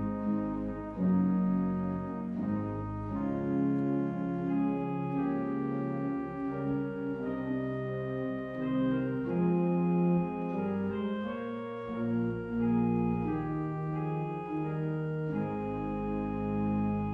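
Church organ playing a slow hymn arrangement in full sustained chords on the manuals over deep pedal bass notes, the chords changing every second or two. The bass drops out for a few seconds past the middle and comes back near the end.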